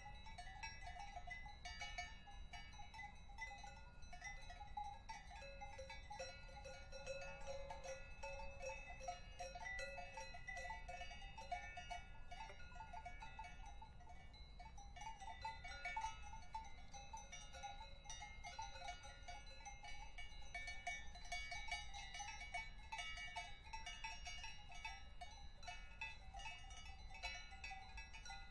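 Several cowbells clanking and jangling together without a rhythm: a continuous, fairly faint ringing at several pitches at once.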